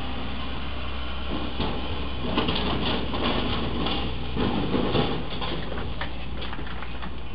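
A fifth-wheel RV trailer's roof A/C unit hitting and scraping along the low railroad bridge overhead. It makes a few seconds of clattering, scraping crunches with sharp strikes, loudest about two and a half seconds in and again near five seconds, over a steady low vehicle rumble.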